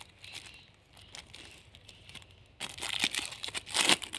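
Thin clear plastic wrapper crinkling as hands pull it open, faint at first, then a run of louder crinkles over the last second and a half.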